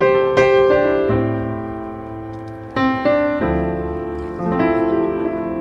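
Piano music, a slow piece of struck chords and single notes that ring and fade, starting abruptly.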